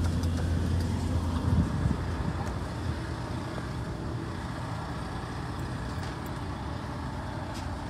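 Coach bus engine idling, a strong steady low hum that eases about a second and a half in into a steadier, broader rumble.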